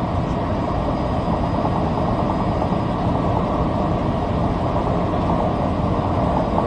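Steady low engine drone, as heard inside a light aircraft's cabin, with an even, unbroken level.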